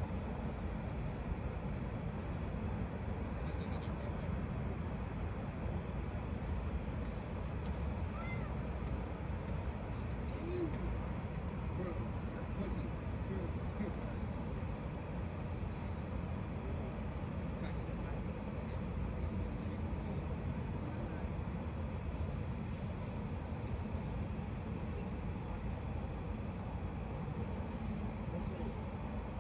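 Steady chorus of crickets, one continuous high trill that never breaks, over a low rumble.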